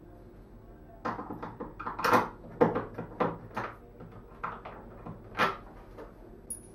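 Phillips screwdriver backing big wood screws out of a Vacuflush toilet base: short, irregular clicks and knocks, a few a second, starting about a second in.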